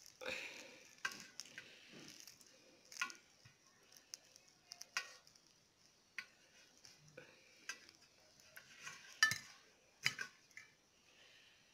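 Scattered light clicks and taps of a bamboo skewer and roasted fish against a steel plate as the fish is pulled off the skewer by hand, with a soft scrape near the start.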